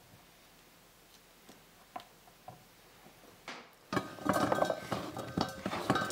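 A few faint taps of a knife on a plastic cutting board, then, about four seconds in, a dense clatter as diced bell pepper is scraped off the board into a stainless steel pot, the pieces and the board's edge knocking on the metal with brief ringing.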